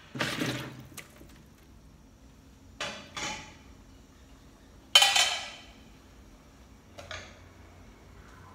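Metal cookware clanking as a pot lid and pans are handled and set down: several separate clanks, the loudest one, about five seconds in, ringing on briefly.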